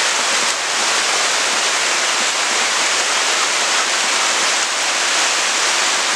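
Heavy rain pouring down on a wet paved yard and trees: a loud, steady, dense hiss.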